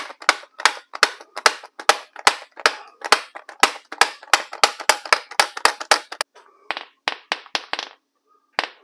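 Sharp metallic knocks, about four or five a second, of a steel socket being rapped against the concrete floor to knock out a lug nut stuck inside it. The knocking pauses briefly about six seconds in and again near the end.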